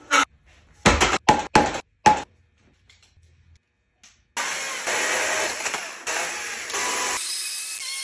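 Chainsaw cutting into a wooden log. There are a few short, sharp bursts in the first two seconds and a pause. From about four seconds in, the chainsaw cuts steadily, broken by brief gaps.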